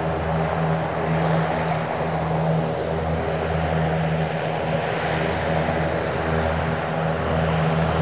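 De Havilland Canada Dash 7 turboprop engines running steadily: a constant low propeller hum over a broad even hiss.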